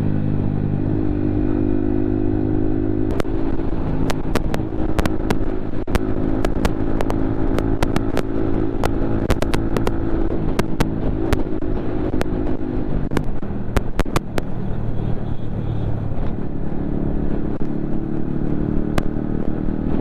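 Yamaha MT-15's 155 cc single-cylinder engine running steadily while being ridden. Many sharp clicks and knocks come through from about three seconds in until near fifteen seconds, while the engine's steady note gives way to rougher noise and then returns.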